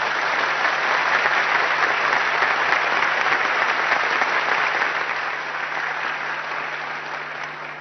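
A large hall audience applauding, a dense steady clapping that swells at the start and fades away over the last couple of seconds.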